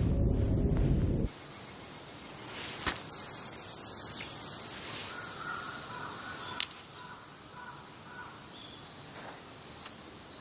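A deep soundtrack rumble that cuts off abruptly about a second in, then quiet background ambience with a faint steady high hiss and two soft clicks.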